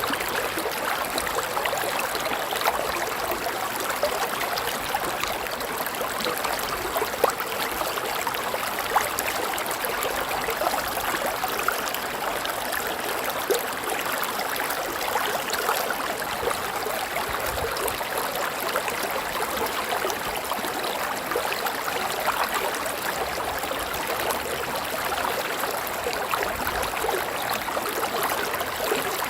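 River water flowing over rocks: a steady babbling rush with small splashes and gurgles.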